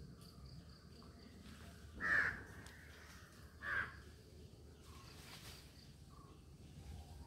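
Two short, harsh animal calls, the first about two seconds in and the second about a second and a half later, over a faint outdoor hush.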